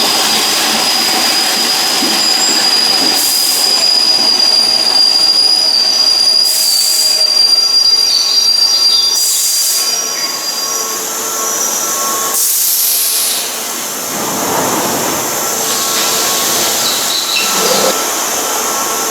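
Keihan electric train at the platform, its wheels giving a high, steady squeal that fades out about ten seconds in, with several short hisses of air over the running noise.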